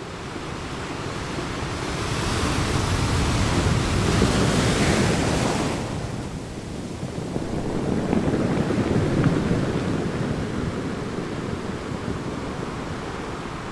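A rushing noise, like surf or wind, that swells and fades twice, the first swell dropping away about six seconds in and the second peaking around nine seconds in.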